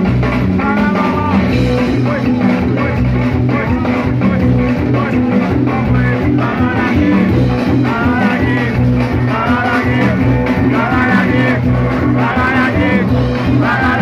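Live band music: several voices singing a melody over a steady, repeating bass line and beat.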